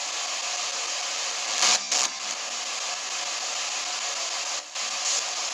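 S-Box ghost box hissing steady static, with two brief louder bursts about a second and a half in and another short burst near the end.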